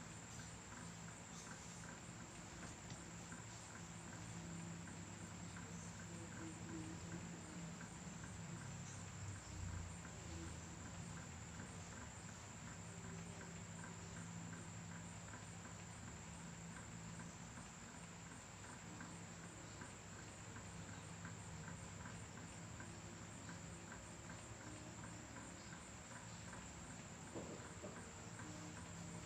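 Cricket trilling steadily at a high pitch, over a low steady hum.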